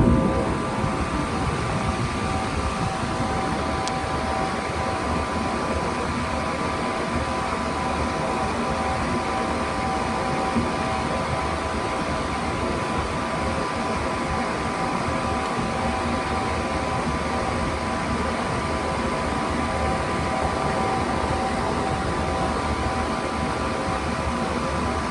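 Two Alaska heater units running at the same time in heat mode: a steady fan whir over a low rumble, with a few held tones.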